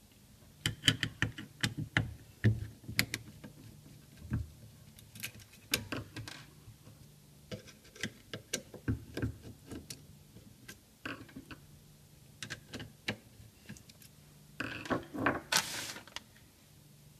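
Screws being undone from a car's electric window regulator motor with a hand screwdriver: scattered, irregular metallic clicks and ticks as the tool and metal parts are handled. A short, denser clattering burst comes near the end.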